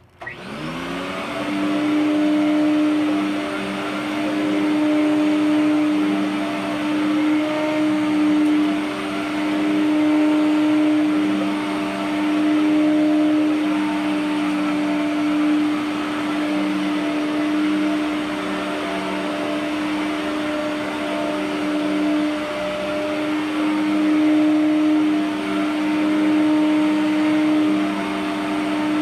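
S.C. Johnson Vectron vacuum cleaner switched on: its freshly rebuilt 10-amp Lamb motor spins up with a rising whine in the first second, then runs steadily with a strong hum and airy rush. The level swells and dips gently every couple of seconds.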